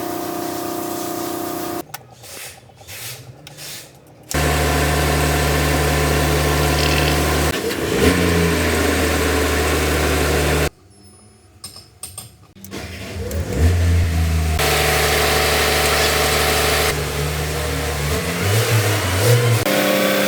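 Truck engine running in several cut-together clips: steady running, with brief rises in pitch as it is revved, and two short quieter gaps where the sound drops away abruptly.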